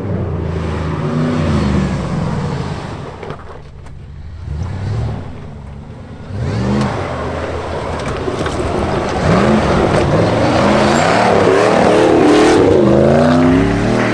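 Jeep Grand Cherokee ZJ's 5.2-litre Magnum V8 revving repeatedly, its pitch rising and falling with the throttle. It drops back about three and a half seconds in, picks up again around seven seconds, and is loudest over the last few seconds.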